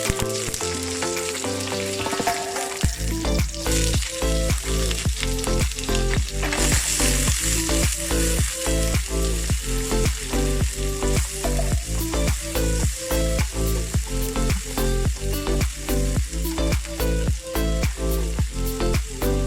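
Food sizzling as it fries in a pan, under background music with a steady beat; a deep bass line comes in about three seconds in.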